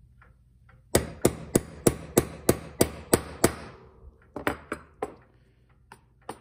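Small hammer tapping a punch to drive a brass bushing flush into a worn pivot hole in a brass clock movement plate: nine quick, sharp metallic taps, about three a second, each with a short ring. A few lighter, scattered knocks follow.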